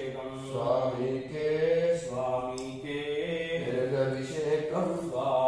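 A man's voice chanting Hindu mantras in a steady, melodic recitation with long held notes.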